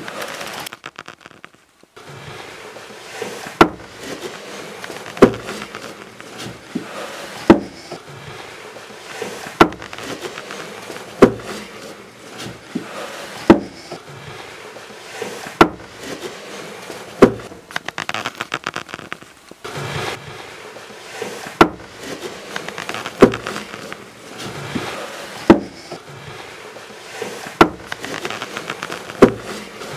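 Sharp knocks in a loose rhythm, about one every two seconds, over a steady crackling, rustling noise.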